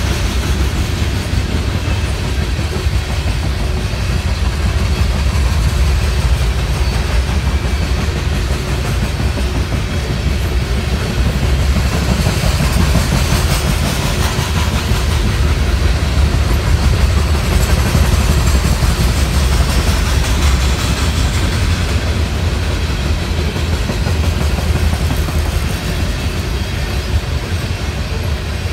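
Coal hopper cars of a freight train rolling past: a steady, low rumble of steel wheels on the rails that does not let up.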